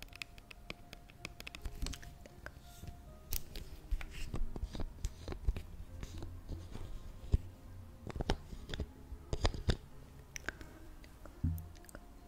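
Irregular close-up clicks and crackles, with faint steady tones of soft background music underneath.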